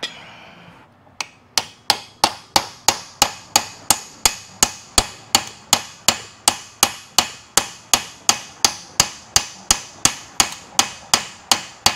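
Hand hammer striking a steel bar held against the end of a hydraulic cylinder: sharp metal-on-metal blows, evenly paced at about three a second, starting about a second in, each with a short ring. The blows are meant to shock a stuck part of the cylinder loose.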